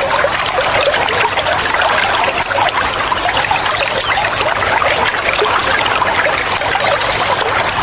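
Running water, steady and loud, with birds chirping over it: quick runs of high, falling notes about three seconds in and again near the end.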